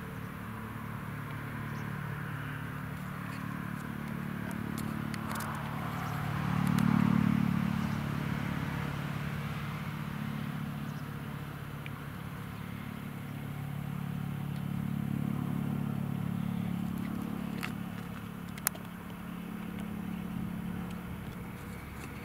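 Eurocopter EC155 twin-engine helicopter on its landing approach, heard from a distance as a steady low drone of rotor and turbines that swells about a third of the way in. A single sharp click comes near the end.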